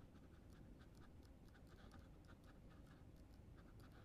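Near silence: room tone with faint light clicks, several a second, from hands working a laptop.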